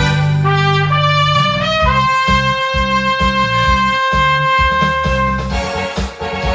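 Cornet playing a melody over an accompaniment with bass and drums, moving through a few short notes and then holding one long note for about three and a half seconds.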